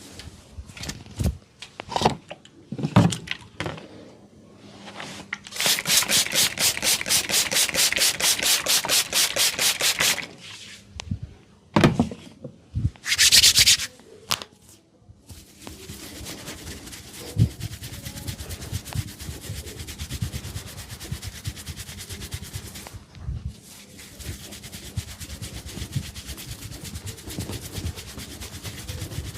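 Hands massaging an oiled scalp and hair: a few scattered taps, then a fast even run of rubbing strokes for about four seconds, and steady rubbing for the second half.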